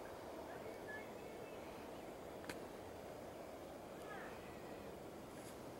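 Faint outdoor ambience: a steady low hiss with a few faint distant bird chirps, about a second in and again near four seconds. A single soft click comes about two and a half seconds in.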